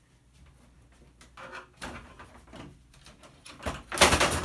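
A television's back cover being pried loose by hand: scattered light clicks and scrapes, then a loud cluster of cracking snaps near the end as its clips let go.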